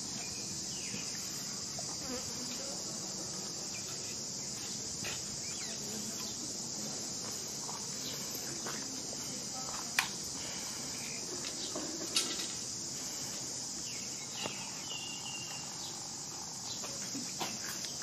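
A steady, high-pitched insect chorus that holds unbroken throughout. A couple of brief sharp clicks sound about ten and twelve seconds in.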